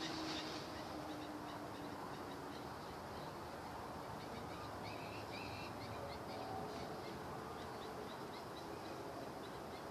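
Several birds calling: low, drawn-out calls that sag slightly in pitch, over a scatter of quick high chirps, against a steady background hiss.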